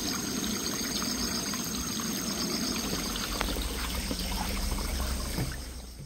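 Small forest stream flowing and trickling steadily, fading out near the end.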